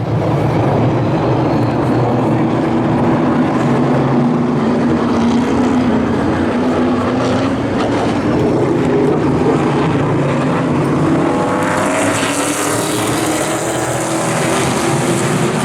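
A field of Pro Late Model stock cars' V8 engines running together, their pitches slowly rising and falling as the cars circle the track. A steady hiss joins about three-quarters of the way in.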